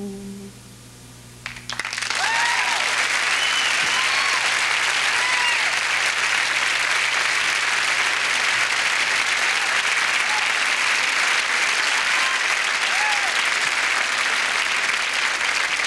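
The last held note of an a cappella gospel song fades out, and about two seconds in a large audience breaks into steady applause, with scattered cheers rising and falling over the clapping.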